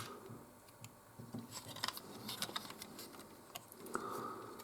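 Faint, scattered clicks and ticks of plastic Lego parts being handled as the mech's legs are folded in on their ball joints, with one sharper click at the start.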